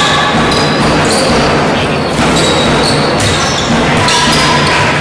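Basketball game on a hardwood court: the ball bouncing as it is dribbled, mixed with short high sneaker squeaks, in the echo of a large gym.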